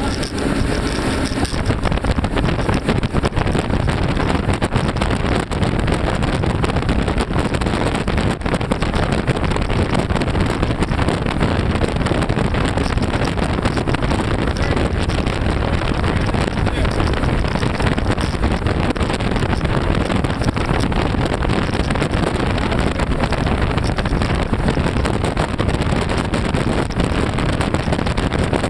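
Three outboard motors driving a fishing boat at high speed: a loud, steady drone mixed with the rush of water from the wake and wind buffeting the microphone.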